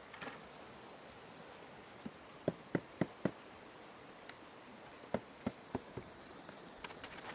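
Hollow knocks of a tool against a wooden dugout boat, each with a short ringing tone: four in quick succession about two to three seconds in, then four more about five to six seconds in, over a steady rush of floodwater.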